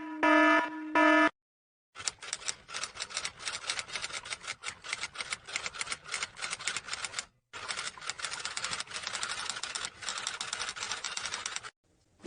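A pulsing electronic alarm beep, the loudest sound, stops about a second in. After a short pause comes rapid typing on keys: a dense, irregular run of clicks with one brief break halfway through.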